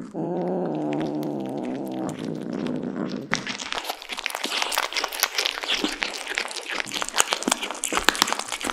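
A cat's low, steady rumble for about three seconds, then cats chewing and tearing at a raw duck leg: dense wet clicking and crunching.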